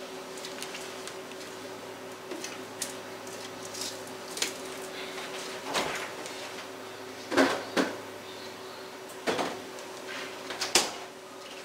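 Scattered clicks and clunks of off-camera kitchen handling, with a few sharper knocks in the second half, over a faint steady hum.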